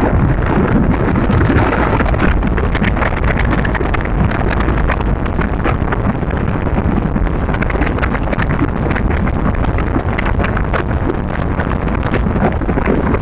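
Steady rush of a moving car on a paved road, with wind buffeting the microphone in constant crackles.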